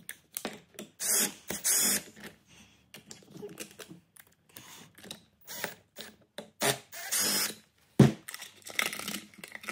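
Cordless driver running in four short bursts, backing out the screws that hold the control box onto a BMW ABS pump, with light clicks of the screws and housing being handled between bursts and a sharp knock about eight seconds in.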